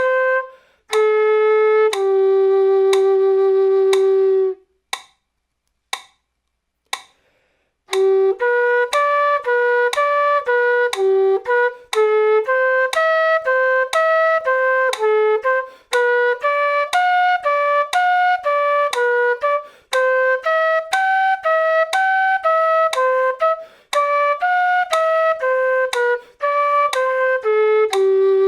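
Quena playing a scale-and-arpeggio exercise over a metronome clicking about once a second. A long held low note ends a few seconds in, then only the clicks are heard for about three seconds, and from about eight seconds in the quena plays arpeggios and two-note groups, changing notes about twice per click.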